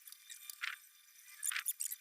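Steel shelving parts scraping and clinking against each other as the rack is fitted together: two short scrapes, about two-thirds of a second and a second and a half in.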